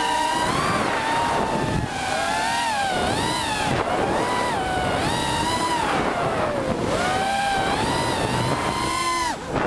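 An FPV racing quadcopter's brushless motors (Emax RS2205 2300 kV spinning tri-blade props) whining, the pitch sweeping up and down constantly with the throttle, over wind rushing on the onboard camera's microphone. The whine cuts off near the end.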